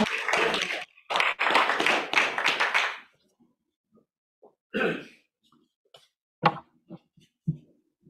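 Brief applause from a small audience, which ends about three seconds in. A few scattered soft knocks and taps follow.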